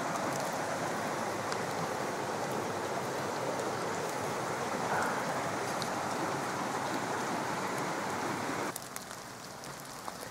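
Shallow creek running, a steady rush of water. Nearly nine seconds in it cuts off sharply to a quieter background with a few faint ticks.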